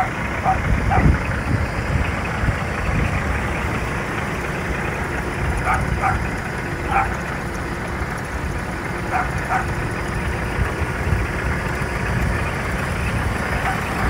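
Scania R480 truck's diesel engine idling with a steady low rumble. Short, sharp calls sound over it a few times, mostly in pairs.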